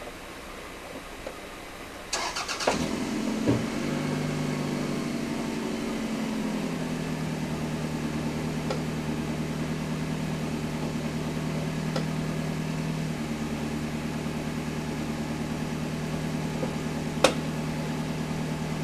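A car engine is started: a short burst of cranking about two seconds in, then it catches and runs at a raised idle that drops to a lower, steady idle a few seconds later. A single sharp click comes near the end.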